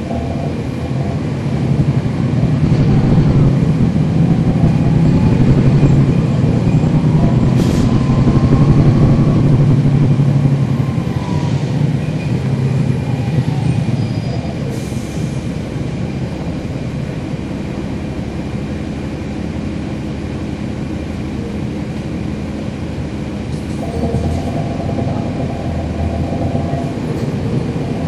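Cabin sound of a 2011 NABI 40-SFW transit bus: its Cummins ISL9 inline-six diesel runs, growing louder from about two seconds in and easing back after about ten seconds. A faint rising whistle comes from the ZF Ecolife six-speed automatic transmission.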